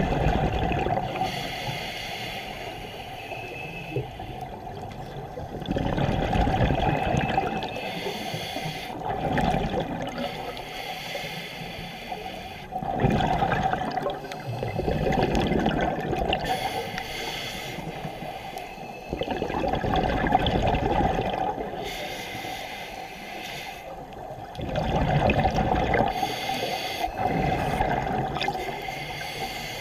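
Scuba regulator breathing underwater: loud swells of bubbling exhaled air that come back every six seconds or so, with quieter stretches between breaths.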